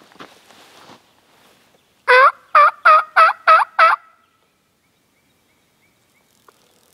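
A run of six loud turkey yelps, about three a second, blown by a hunter on a mouth call with his hands cupped around his mouth. It is a locating call meant to make a gobbler answer.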